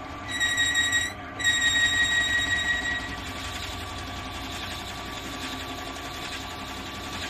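Peugeot Outillage column drill press running steadily at about 340 rpm. A loud, high-pitched whistling tone sounds twice in the first three seconds, the second one longer, over the steady motor drone.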